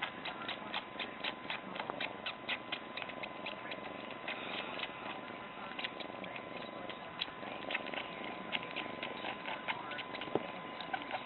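A cat suckling on a person's chin: quick, irregular wet sucking clicks, several a second, over a faint steady hiss and a thin high tone.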